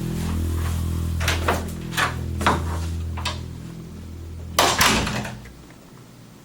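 A low steady hum with a few sharp knocks and bumps, then a loud slam about four and a half seconds in, like a door shutting hard, after which the hum stops.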